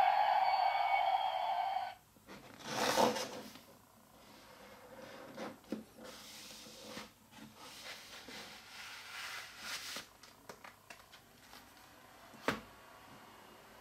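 The musical birthday card's electronic sound chip plays a held note, which cuts off about two seconds in. After it comes the rustle and scrape of the card's pull-out cardboard panels sliding shut, loudest about three seconds in, with small clicks and a light tap near the end.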